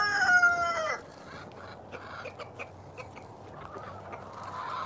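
Rooster crowing: the long held end of the crow falls in pitch and cuts off about a second in. Then quieter, with scattered faint clicks from the chickens about the yard.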